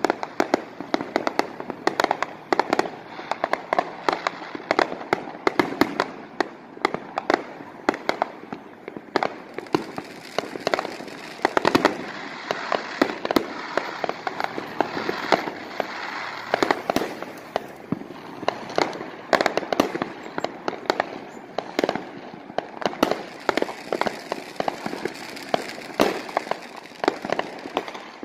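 Many fireworks going off at once: aerial shells bursting in a dense, unbroken run of sharp bangs, several a second.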